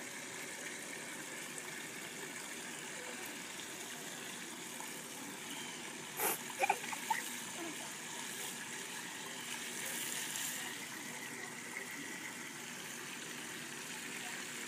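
Garden hose running at low pressure into a plastic bucket, a steady trickle of water filling it. A short knock about six seconds in.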